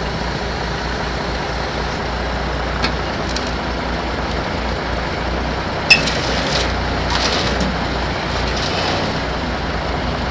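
Heavy diesel engine idling with a steady low throb. A single sharp clank rings out about six seconds in, and a few lighter clanks come before and after it.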